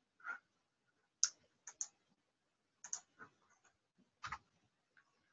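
Faint computer clicks: about eight short, sharp clicks scattered over the few seconds, several of them in close pairs.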